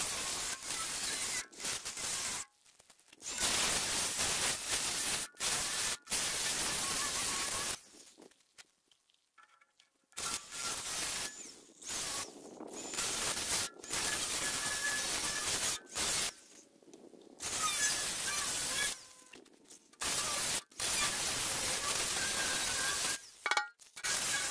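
Battery-powered cutter's blade cutting through the steel wall of a water-filled propane tank, starting and stopping in runs of a few seconds, with a longer pause about eight seconds in. The blade is being worn down to nothing.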